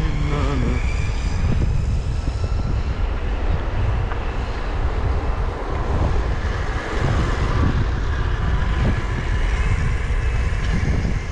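Steady wind buffeting on the camera's microphone with the rumble of wheels rolling on asphalt, from riding down a street.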